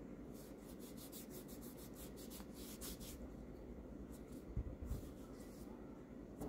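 A cloth rubbing over a folding knife's micarta handle: a quick run of short, soft scratchy strokes, then a few more with a couple of light bumps, wiping off excess factory oil.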